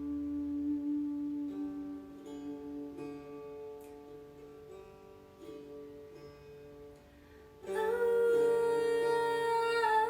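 Slow meditation music: long held tones with soft plucked string notes drifting over them. A louder sustained tone comes in sharply about three-quarters of the way through.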